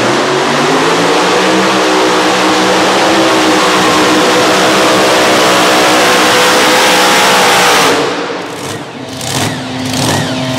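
Mini unlimited pulling tractor's supercharged engine at full throttle dragging the sled. Its pitch climbs over the first second or two, then holds steady, and it cuts off suddenly about eight seconds in at the end of a full pull.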